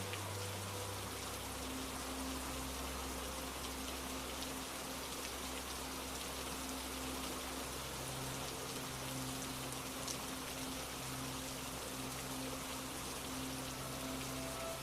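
Steady rain falling in an even hiss of drops. Soft, low sustained drone tones sit underneath, shifting pitch about a second in and again around the middle.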